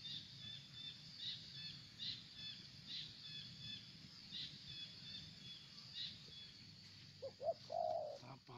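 Birds chirping in short high notes repeating steadily, with a few lower calls about seven seconds in.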